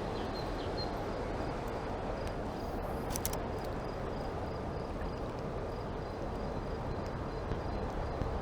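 Steady rush of a fast-flowing mountain stream, with a faint click about three seconds in.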